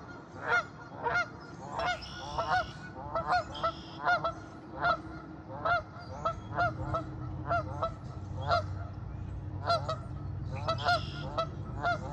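Canada geese honking over and over, short sharp honks at about two a second.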